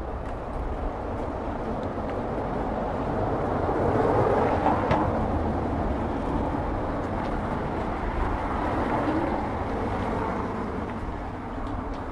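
Street noise with a motor vehicle passing, growing louder to a peak about four to five seconds in, then fading, with a smaller swell around eight seconds.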